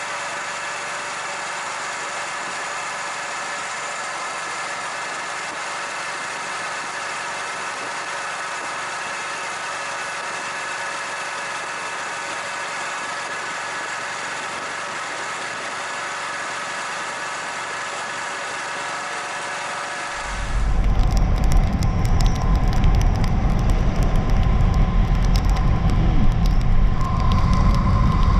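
Motorcycle engine running steadily at cruising speed, heard from the bike. About two-thirds of the way through it cuts to a much louder low rumble of wind and road noise from riding in the rain, with a steady tone joining near the end.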